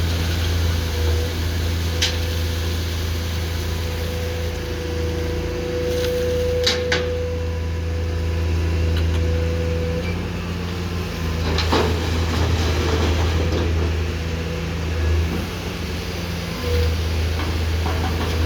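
Komatsu PC210-10M0 excavator's diesel engine running steadily under work, with a higher tone that swells and fades and a few sharp knocks.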